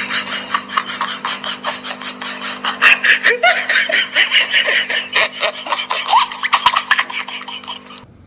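Rapid, high giggling laughter over a steady low hum, stopping abruptly just before the end.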